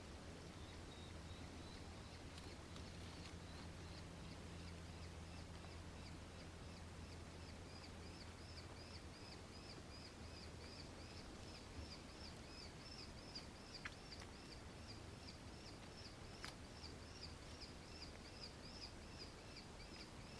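Nankeen kestrel giving a long, steady series of high, shrill repeated notes, about three a second, faint at first and stronger after the first few seconds.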